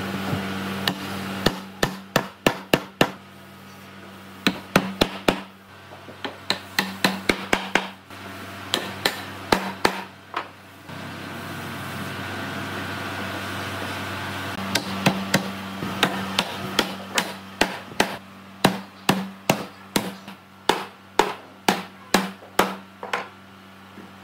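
Repeated hammer blows on wood, coming in quick runs of several strikes, as the joints of a wooden frame are knocked together. There is a pause of a few seconds midway, and a steady low hum runs underneath.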